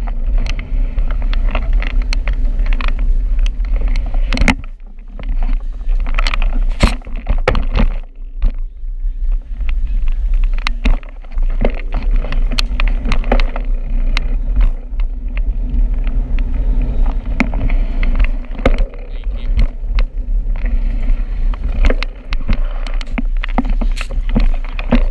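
Riding a bicycle: a steady low rumble of wind on the microphone, broken by frequent sharp rattles and knocks from the bike over the road surface.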